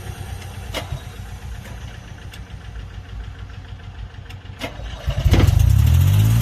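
An Airman PDS90 air compressor's three-cylinder diesel engine being restarted: a low, uneven rumble with a few sharp clicks while it turns over. About five seconds in it fires, gets much louder and rises in pitch as it runs up to speed.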